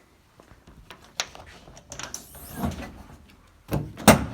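Latches and panels of a Ford Ranger pickup being handled: scattered clicks and rattles, then a sharp latching thunk about four seconds in.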